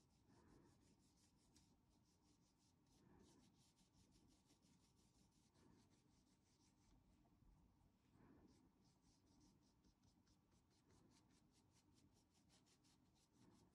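Faint, quick strokes of a flat paintbrush dabbing and rubbing paint through a stencil onto a fabric apron, coming in runs of rapid strokes.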